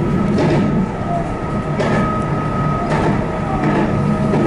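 Meitetsu limited express train running on the rails, its wheels clicking over rail joints about once a second (four clicks), over a steady rumble and a constant high whine.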